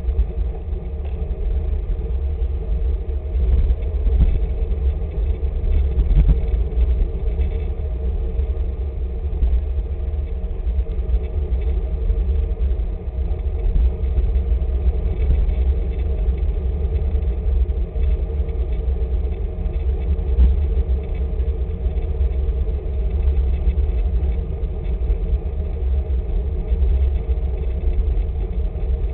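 Steady wind rumble on the microphone of a bike-mounted camera riding along at speed, a loud, even low rush with no breaks.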